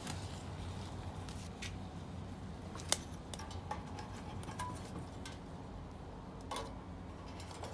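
Scattered light clicks and clinks of cooking gear being handled at a cast iron pan, with one sharper click about three seconds in, over a steady low hum.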